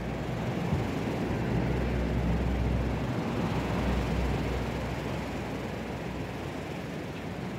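Gusty wind buffeting the microphone, a deep rumble with a rushing hiss over it, building to a stronger gust in the middle and then easing.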